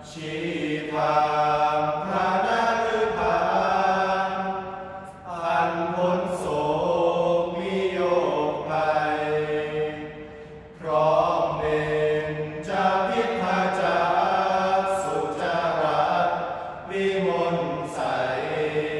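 Five young men chanting Thai Buddhist sarabhanya in unison: long, slow melodic phrases of held, gliding notes, with short breaks for breath every five or six seconds.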